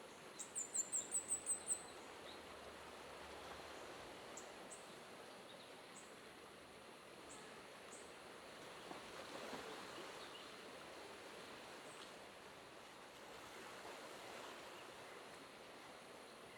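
Steady, faint rush of flowing water with a bird calling over it: a quick run of about eight high notes near the start, then scattered single chirps.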